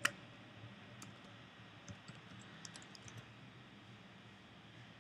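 Computer keyboard keystrokes: one sharp key click at the start, then a few scattered, fainter key clicks over the next three seconds as a terminal command is finished and entered, leaving only a faint steady hiss.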